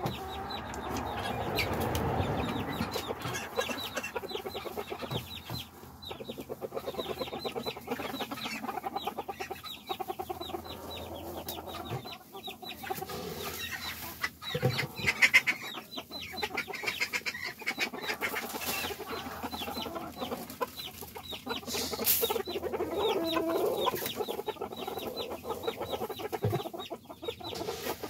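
Several chickens clucking in quick, short calls, with a louder moment about halfway through.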